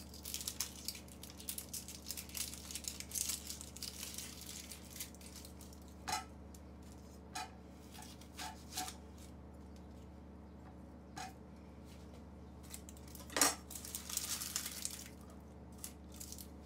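Dry onion skin crackling as it is peeled off with a chef's knife, then the knife knocking sharply on a plastic cutting board about six times as the onion's ends are cut off, the loudest knock near the end followed by a little more rustling.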